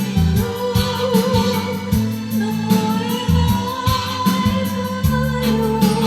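Music: a song with singing over a steady beat and bass line.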